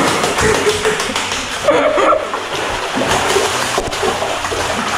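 Sea water splashing and sloshing inside a sea cave.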